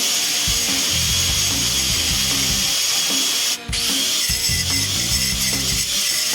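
Handheld abrasive power tool grinding and sanding the rusty metal bumper: a steady hiss with a faint whine, cutting out briefly about three and a half seconds in.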